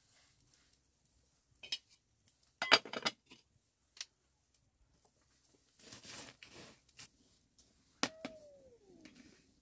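Scattered clinks and knocks of dishes and kitchen utensils, loudest in a quick cluster about three seconds in, with a scraping rustle around six seconds and a short falling squeak near the end.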